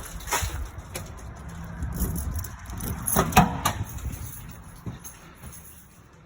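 A few knocks and thuds over a low rumble, the loudest about three and a half seconds in, as someone walks through the building, possibly with a door being handled.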